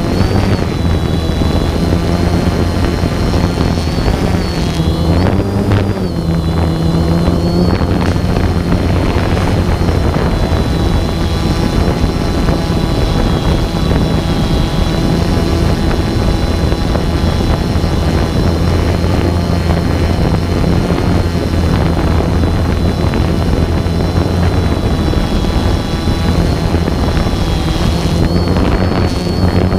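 Multirotor drone's propellers and motors running steadily, with a high whine over a low hum; the whine wavers in pitch briefly about five seconds in and again near the end.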